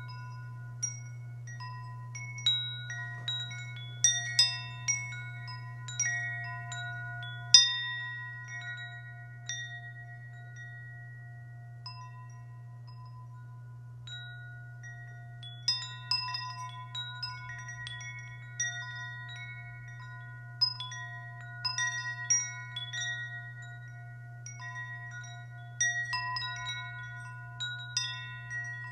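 Wind chimes ringing in irregular clusters of struck notes at a few fixed pitches that hang on, over a steady low hum. The chiming thins out for a few seconds near the middle and picks up again.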